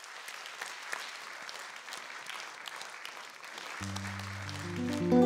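Audience applauding with dense clapping. About four seconds in, the band starts the song's intro with sustained low notes that swell louder near the end.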